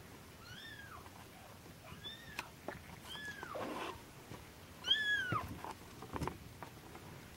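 Three-week-old Norwegian Forest Cat kitten mewing: four high, thin mews, each rising then falling in pitch, the one about five seconds in the loudest.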